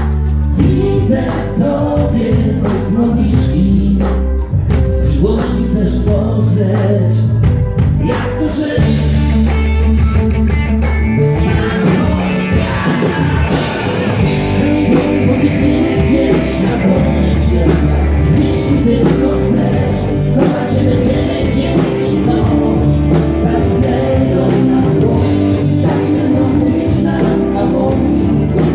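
Live rock band playing a song: lead vocals sung into a microphone over electric guitar, bass guitar and drums.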